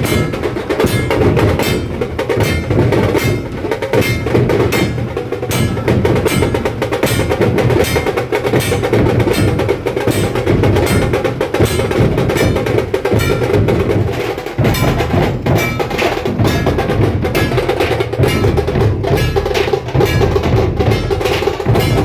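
Dhol-tasha troupe drumming: big dhol drums and sharp tasha drums beaten in a rapid, unbroken rhythm.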